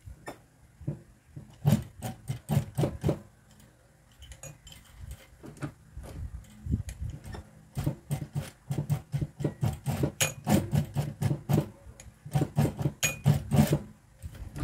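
Juki industrial sewing machine stitching slowly in short runs, each stitch a distinct knock at about four a second, stopping and starting several times.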